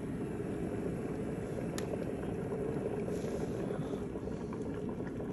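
Water heating to a boil: a steady low bubbling rumble, with one faint click about two seconds in.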